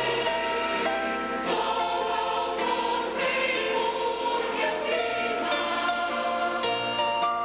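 Mixed choir singing held chords in harmony, the chords changing every second or so over low bass notes.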